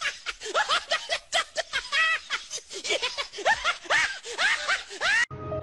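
A person laughing hard in a quick run of short, high-pitched rising-and-falling cackles. The laughter cuts off suddenly near the end, and music begins.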